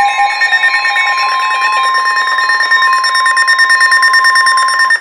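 Emergency Alert System alert tones, loud: a steady alarm tone of the kind that heads a National Weather Service warning, layered with a second steady tone and a fast, evenly pulsing beep. The tones cut off just before the end.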